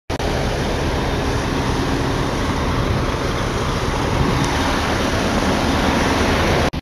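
Diesel railcar standing at a station platform with its engine running: a loud, steady rumble and hiss.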